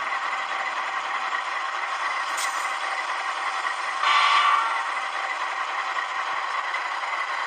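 Model locomotive's DCC sound decoder playing a GE 7FDL 16-cylinder diesel engine sound through its small speaker as the model runs, a steady mechanical hum. A brief, louder, pitched sound cuts in about four seconds in for about half a second.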